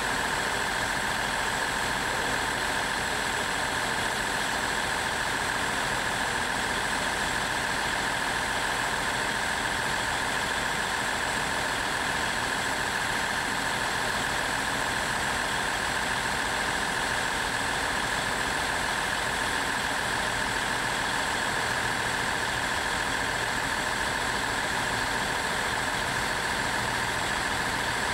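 Virgin Voyager diesel-electric train's underfloor diesel engines running, a steady drone with a constant high whine.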